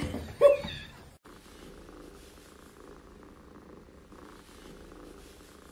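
A short, loud pitched cry about half a second in, then a cat purring steadily and softly.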